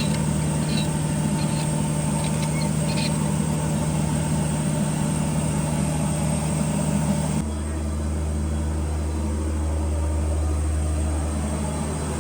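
Fishing boat's engine running steadily, with a few light clicks in the first three seconds. About seven seconds in, the sound changes abruptly to a deeper, lower hum.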